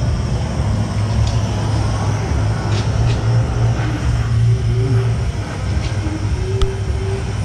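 A car running with a steady low rumble of engine and road noise, with a few faint ticks.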